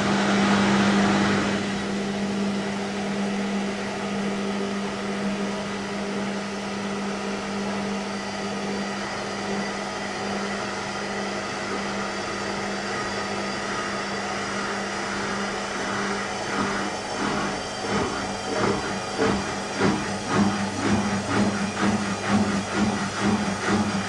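Whirlpool front-loading washing machine running with a steady hum, on a machine that will not go into spin. About two-thirds of the way in, a rhythmic pulsing of about two beats a second sets in over the hum.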